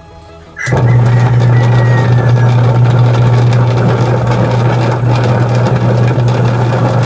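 Single-tub washing machine running with a loud, steady grinding and a strong hum, starting suddenly about a second in. The noise comes from a crushed bearing in the gearbox.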